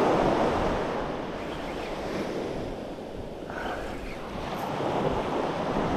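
Small surf breaking and washing up the sand, swelling twice, with wind buffeting the microphone.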